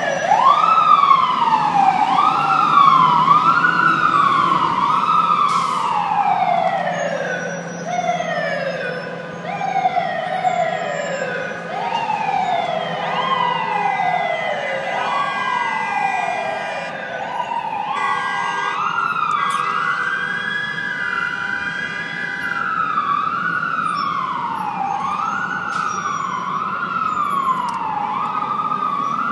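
Several emergency-vehicle sirens wailing at once, from fire trucks and an ambulance, their overlapping rising and falling sweeps about one to two seconds apart, over a low engine rumble.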